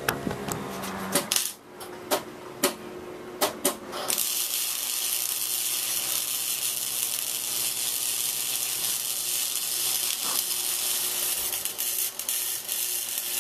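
Arc welder: a few sharp clicks, then from about four seconds in the steady crackling hiss of the welding arc burning.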